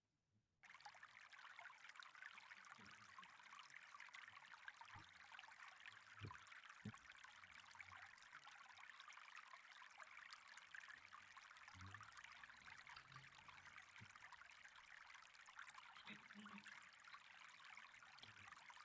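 Faint, steady rush of flowing canal water, starting about half a second in, with a few soft low knocks along the way.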